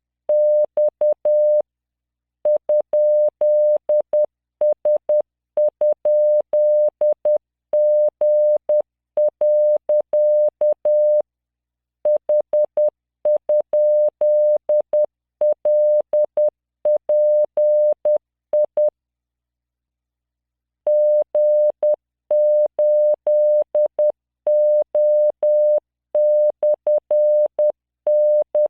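Morse code practice tones from CW training software: a 600 Hz tone keyed in dots and dashes at 10 words per minute, sending random five-character groups with short pauses between groups. A longer pause of about two seconds comes about two-thirds of the way through.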